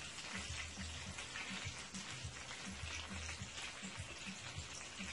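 Sea bass fillets frying in melted butter in a skillet over medium heat: a soft, steady sizzle.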